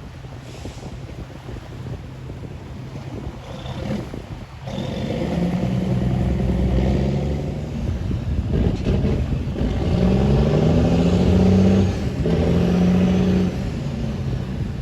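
Tugboat diesel engine running, getting louder about five seconds in as it is throttled up, its pitch rising and settling several times as the throttle changes while it manoeuvres the barges.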